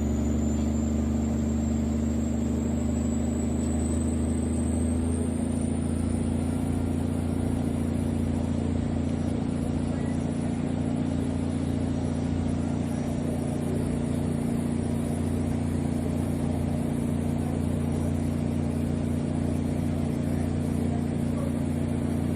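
An engine running steadily, a low drone with a faint high whine that slowly rises over the first several seconds and then holds.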